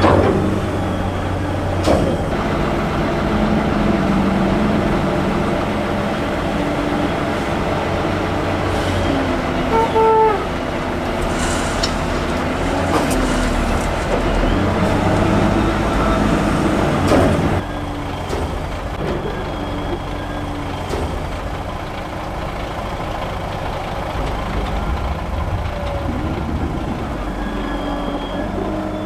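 The diesel engine of a Claas Torion 1914 wheel loader runs and revs up and down as it scoops chopped maize silage and tips it into a truck's semi-trailer. A brief high tone sounds about ten seconds in, and the sound turns quieter at about 17 seconds.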